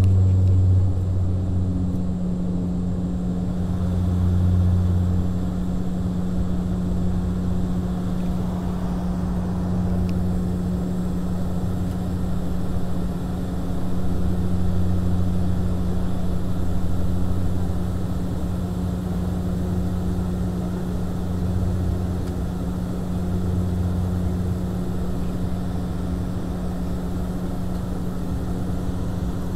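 Airliner cabin noise in flight: a steady engine drone with a strong low hum, and under it a lower throb that swells and fades every few seconds.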